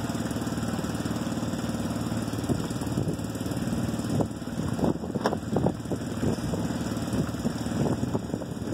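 Shrimp boat's engine running in a steady low drone. From about four seconds in, irregular rough rustling noises come and go over it.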